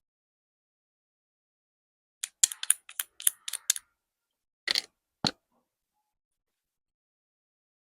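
Hard small pieces clicking together in a quick run of about eight clicks, then two louder knocks about half a second apart, as wooden toy doctor-kit pieces are handled and set down.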